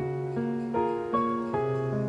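Background music: a piano playing a melody in an even rhythm, about two or three notes a second.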